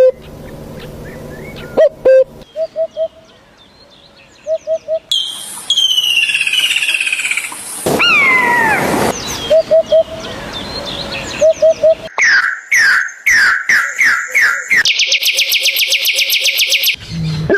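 A series of different bird calls spliced one after another: short groups of three or four quick notes, falling whistled glides, a run of repeated descending chirps, then a very fast trill near the end.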